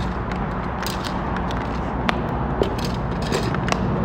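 Handled tools in a leather tool belt giving scattered light clicks and clinks, over a steady low background hum.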